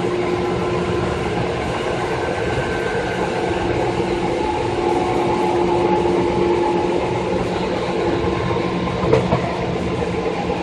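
Seibu 2000 series electric train running at steady speed. Wheels rumble on the rail under a steady hum and whine from the traction motors, with a single short knock about nine seconds in.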